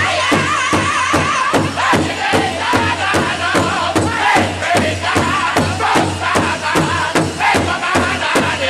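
Powwow drum group performing a contest song: several voices singing together in a high, wavering chant over a steady big-drum beat of about three strokes a second.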